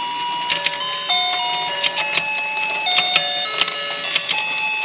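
Battery-powered toy fishing game playing its simple electronic beeping tune, one plain note at a time, with frequent sharp clicks from the turning fish pond.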